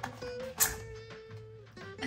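Background music with a slow melody of held notes. A single sharp click sounds about half a second in, louder than the music.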